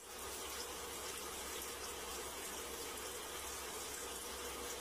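Faint, steady hiss with a low hum underneath.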